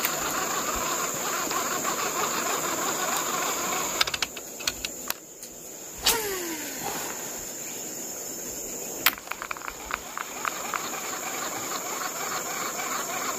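Swift river water rushing steadily under a constant high drone of insects. About four seconds in the rush thins, leaving scattered clicks and a short falling tone, and it fills back in near the end.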